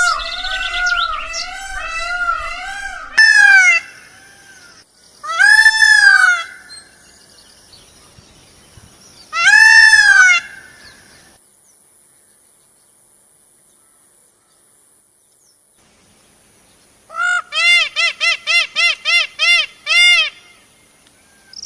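Indian peafowl calling: a run of short calls, then three loud drawn-out wailing calls a few seconds apart. After a pause of several seconds comes a fast series of about ten short calls.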